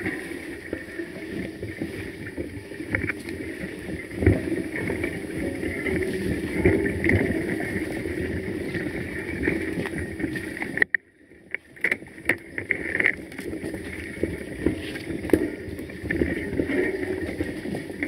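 Mountain bike riding a bumpy dirt singletrack, heard through a handlebar-mounted camera: steady rattle and rumble of the bike and mount, with scattered knocks from bumps in the trail. The noise drops away briefly about eleven seconds in.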